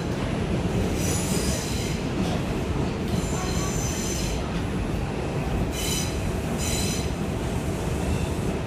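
Ride noise inside a New York City R142-type subway car: a steady low rumble from the running train, with the steel wheels squealing high-pitched several times, about a second in, around three to four seconds in, and twice in quick succession around six to seven seconds in.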